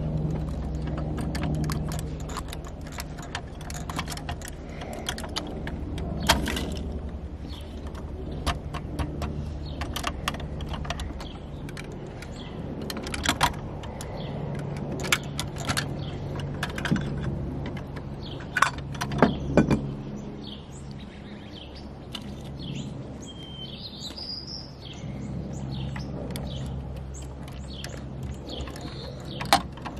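Irregular clicks and clacks of a First Gear die-cast model front-loader garbage truck being worked by hand, its front lift arms and forks raised and lowered with a toy dumpster on a wooden tabletop. A low steady hum runs underneath, and a bird chirps a few times about two thirds of the way through.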